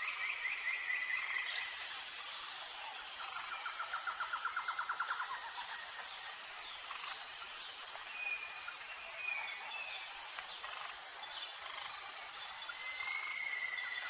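Small rocky stream rushing steadily over low cascades, with songbirds calling over it: a rapid trill about three seconds in and short whistled calls later on. A steady high insect drone runs underneath.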